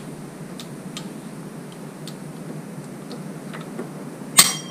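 Pliers working a hose clamp on an engine's coolant hose: faint scattered ticks over a steady low hum, then one sharp metallic clink with a short ring near the end.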